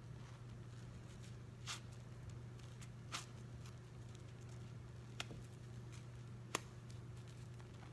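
Hands squeezing and pulling apart a soaked sponge in soapy foam: faint wet squishes with a few short, separate tearing sounds, the sharpest near the end. A steady low hum sits underneath.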